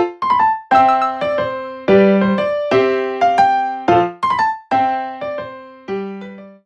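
Background music: an electric piano playing a melody of struck chords that ring and fade, ending just before a drum-backed passage starts.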